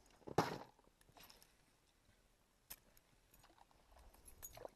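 Quiet handling sounds: a few scattered clicks and knocks as a small fish is held and unhooked, the loudest about half a second in and a sharp click a little before the 3-second mark.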